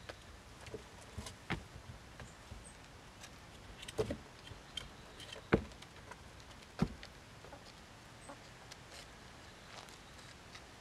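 Hens pecking and stepping on a plywood coop ramp strewn with grain: four irregular sharp knocks on the wood, the loudest a little past the middle, with faint clucking.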